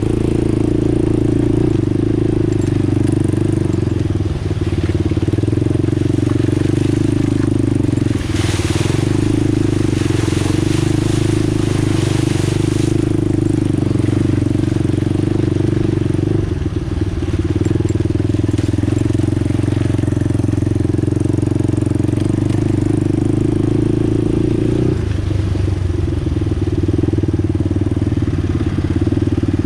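ATV engine running at fairly steady revs while riding along a trail. A rushing hiss rises over it about eight seconds in and lasts about five seconds, and the engine note shifts near the end.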